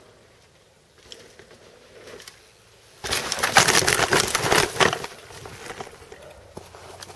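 A mountain bike and rider crashing into a GoPro camera set on the ground: a faint approach, then about three seconds in a sudden loud jumble of knocks and scraping for about two seconds as the camera is knocked over, fading into smaller scattered clatter and rustling.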